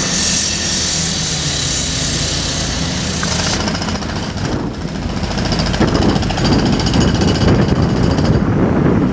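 Caterpillar 319C excavator's diesel engine running as it digs, with a steady high hiss that stops about three and a half seconds in. A rapid, dense rattling then builds and grows louder toward the end.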